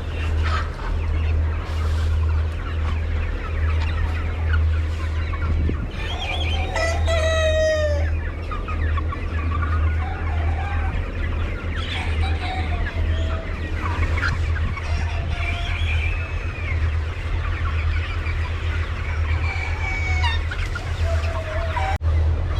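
A flock of chickens clucking, with one long rooster crow about six seconds in, over a steady low hum.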